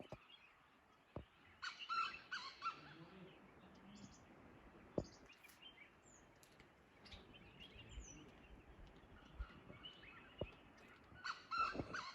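Birds calling: a cluster of chirping, squawky calls about two seconds in and another near the end, with a few short high chirps in between. A few faint knocks are also heard.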